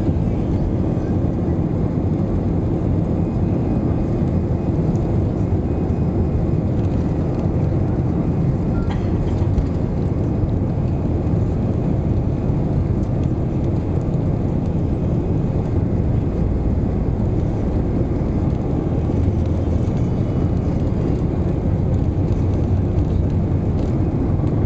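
Airbus A319 jet engines at take-off thrust heard from inside the cabin during the take-off roll: a steady, loud, deep rumble mixed with runway noise.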